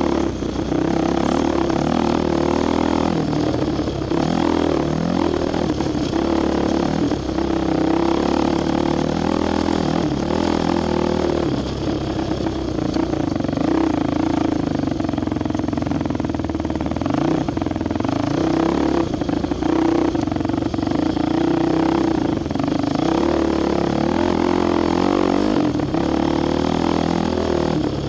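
Dirt bike engine running steadily while being ridden over rocky trail, its pitch rising and falling with the throttle, with occasional short rattles and knocks.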